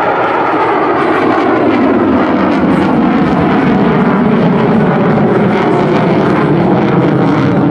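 USAF F-35A's single Pratt & Whitney F135 afterburning turbofan running in afterburner as the jet climbs steeply away: a loud, continuous jet rumble whose pitch sinks over the first few seconds.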